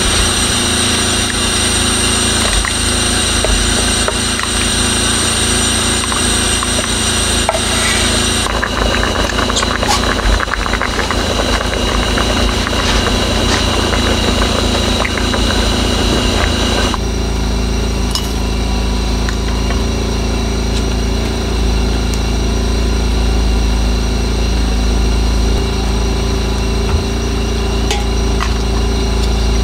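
Small portable generator engine running steadily, a constant low hum under the room sound; its sound changes abruptly twice, about a third of the way in and just past halfway.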